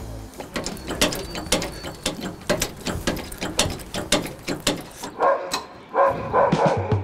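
A ratchet wrench clicking in quick, repeated strokes while the flat wheel of a car-transporter trailer is changed. Near the end a dog whines a few times.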